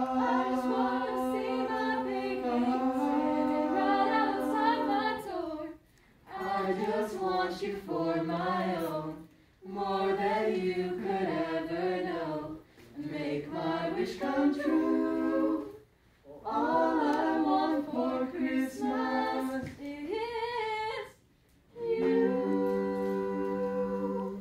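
A small group of carolers, men's and women's voices, singing a cappella in harmony. The song comes in phrases of held chords with short breaks for breath, ending on a long held chord.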